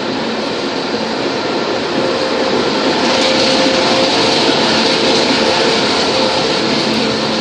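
Norfolk Southern diesel locomotive passing close by, its engine running with a steady hum that grows a little louder about two seconds in.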